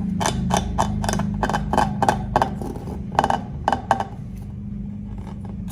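A run of about a dozen sharp, irregular clicks and taps over a steady low hum, stopping about four seconds in.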